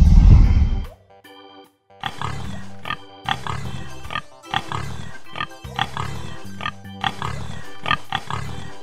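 A loud, deep dinosaur roar sound effect fades out within the first second. After a short gap, a pig grunts in short calls, about two a second, over background music.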